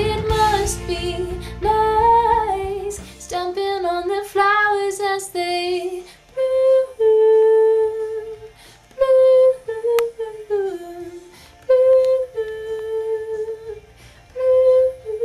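A woman singing, at first over the song's band backing with drums, bass and guitar, which drops out about three seconds in. After that her voice is alone, singing long held notes with short pauses between them.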